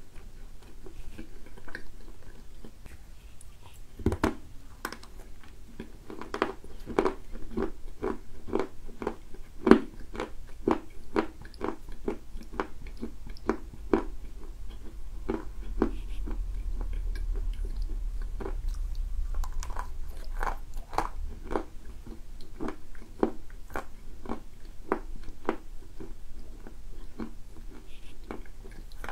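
Dry edible clay being bitten and chewed: a first sharp bite about four seconds in, then steady crunching at about two crunches a second as the hard dried pieces break between the teeth.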